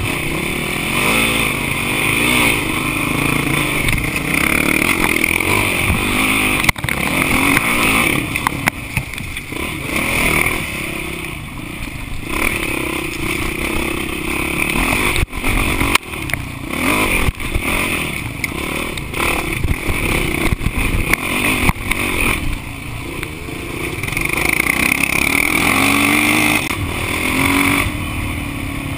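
Dirt bike engine revving up and down over and over as it is ridden along a rough trail, with occasional sharp knocks and rattles from the bike over bumps.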